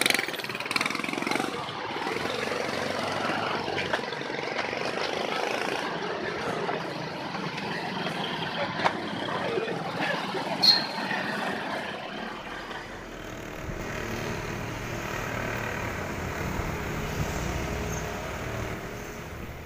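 Street traffic: vehicle engines running and passing on a busy road, with a short sharp sound about ten and a half seconds in.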